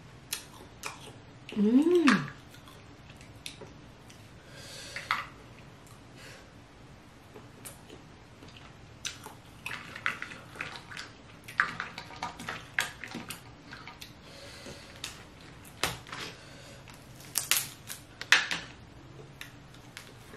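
Close-miked eating of snow crab and lobster meat: wet chewing, slurping and squelching, with small clicks and taps from the shells. A short hummed "mm" of enjoyment, rising then falling, about two seconds in.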